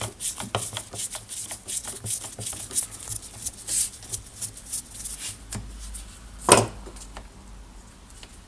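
A screwdriver turning out a Torx screw from the plastic rear housing of a Bosch GWS 1400 angle grinder, heard as a run of small, irregular clicks and ticks of tool and plastic handling. One sharper knock comes about six and a half seconds in.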